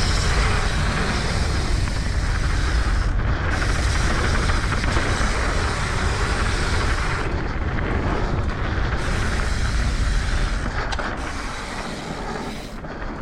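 Wind rushing over an action-camera microphone and mountain bike tyres rolling fast over a dirt trail, a steady noisy rumble that eases a little near the end.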